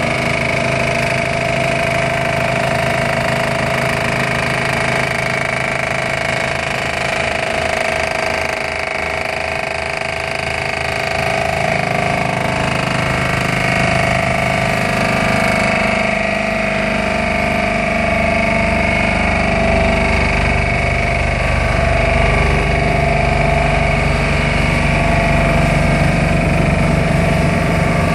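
Bruce SGV-400 hydraulic vibratory hammer vibrating a steel pile down into sand: a loud, steady mechanical drone with a steady whine on top. About twelve seconds in, the drone grows deeper and a little louder as the pile sinks.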